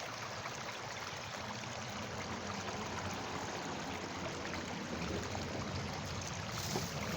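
Small creek running steadily, a continuous rush of flowing water.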